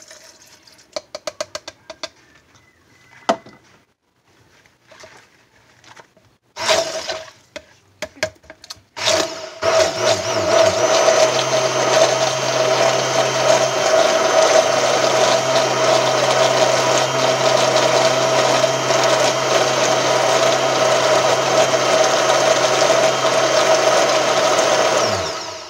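Stick blender running in a plastic pitcher of soap base, blending in freshly added propylene glycol. After a few light knocks and two short bursts, it runs steadily for about fifteen seconds, then winds down near the end.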